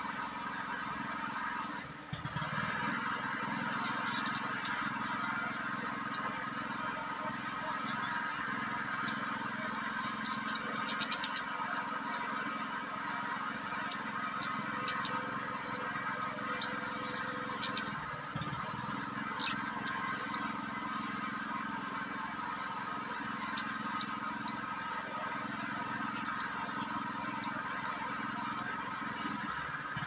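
Caged kemade songbird singing a string of short, sharp, high chirps and trills in quick runs, busiest in the second half, as it runs through its repertoire of learned phrases. A steady hum lies underneath.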